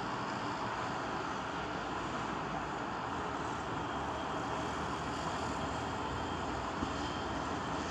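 Steady, even engine-like mechanical noise with no clear pitch, with one faint tick near the end.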